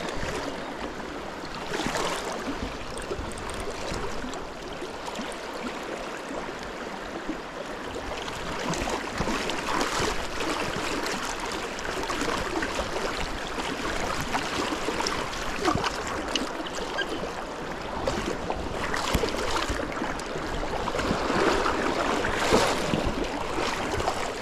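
Shallow river water rushing and babbling over rocks close by, swelling and easing, with a few louder surges.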